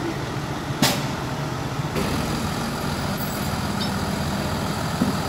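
Farm tractor's diesel engine running at low revs as it tows a heavy float trailer past, with a single sharp knock a little under a second in.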